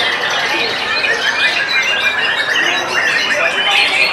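Caged songbirds, among them white-rumped shamas, singing all at once in a dense, unbroken chorus of overlapping whistles, trills and chirps.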